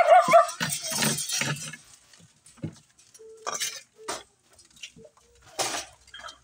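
A person's voice for the first second or so, then scattered knocks and clinks of glass bottles in plastic crates being handled on a hand truck.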